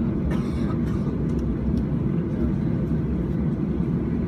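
Cabin noise inside a Boeing 737-800 from a seat over the wing: a steady low rumble of the CFM56 engines running at low power on the ground before takeoff. A brief hiss about half a second in.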